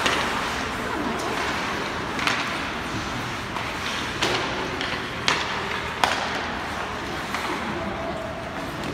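Ice hockey play in an indoor rink: a steady noisy wash of rink sound, cut by about six sharp clacks of sticks and puck.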